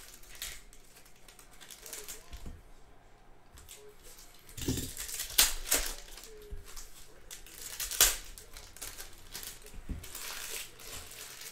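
Trading-card pack wrappers being torn open and crinkled, in irregular bursts of rustling that are loudest about five and eight seconds in.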